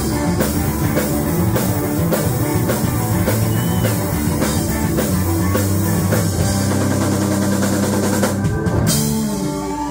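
Live rock band playing through a PA: a drum kit beat under electric guitars. About six and a half seconds in, the drumming stops and a low chord is held.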